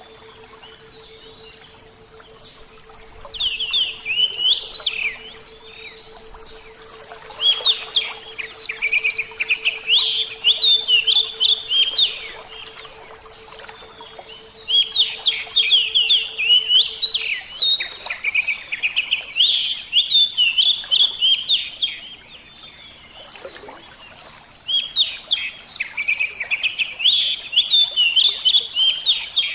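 A songbird singing in repeated bursts of rapid, high chirps, each burst a few seconds long, with short pauses between.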